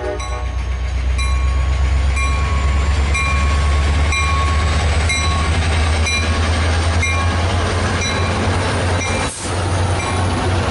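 A train rumbling steadily with its locomotive bell ringing about once a second; the tail of a horn blast ends right at the start. There is a brief dropout just after nine seconds.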